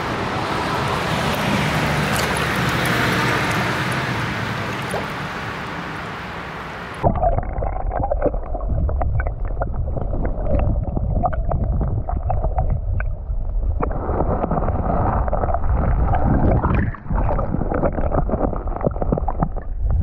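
Creek water rushing and splashing close by at the surface; about seven seconds in the sound abruptly turns muffled, the stream now heard from underwater as a low rumble and gurgling with many small clicks and ticks.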